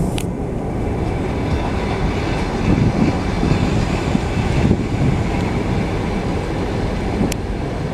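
Passenger train coaches rolling past on the rails: a steady low rumble of wheels on track. Two brief sharp clicks, about a quarter second in and near the end.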